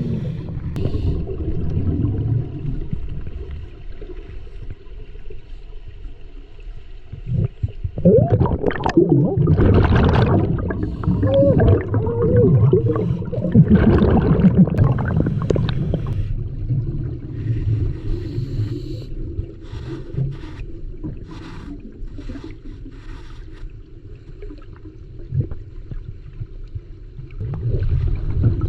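Muffled underwater sound in the churning pool below a waterfall: a low rumble of turbulent water, with surges of gurgling bubbles about a third of the way in and a run of short clicks later on.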